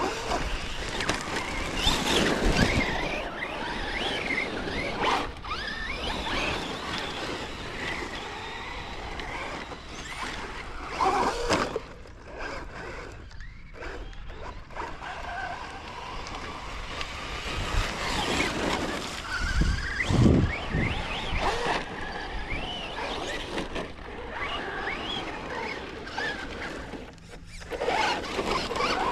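Electric motors of radio-controlled trucks whining, rising and falling in pitch as the throttle is worked, over a steady rushing noise, with a few heavy thumps.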